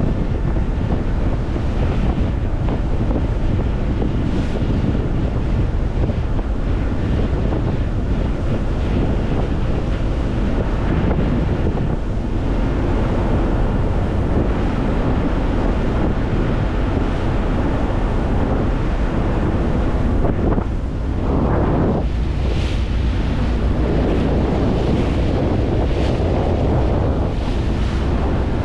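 Steady wind buffeting the microphone over rushing sea water and a low rumble, as on the open deck of a ferry under way.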